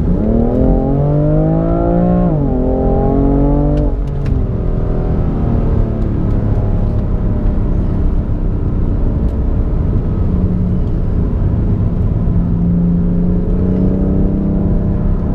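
BMW M4's twin-turbo straight-six under hard acceleration: its pitch climbs, drops at an upshift about two seconds in and climbs again. It eases off at around four seconds and then runs at a steadier, slowly rising pitch.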